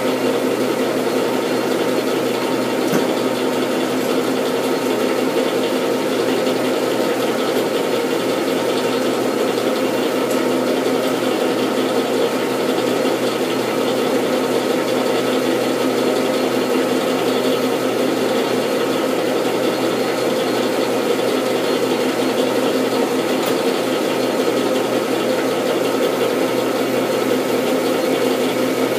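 Metal lathe running steadily with a constant whine while a boring bar takes one more cut inside the bore of a hardened steel gear.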